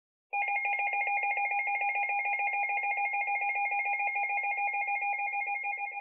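NOAA weather alert radio sounding its alarm: a rapid warbling electronic trill of two alternating high tones over a lower pulsing tone. It starts suddenly just after the beginning and begins to fade near the end. It signals an incoming flood warning.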